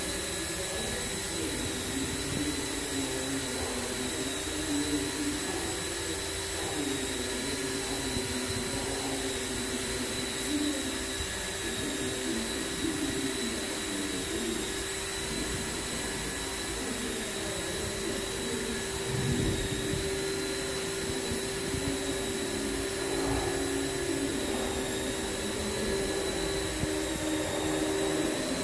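Machinery running steadily: a constant hum with a thin, high, steady whine over it.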